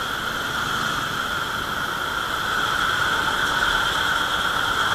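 Steady rushing noise and whine of a motorcycle ride in slow traffic, heard through a helmet-mounted camera, growing slightly louder towards the end.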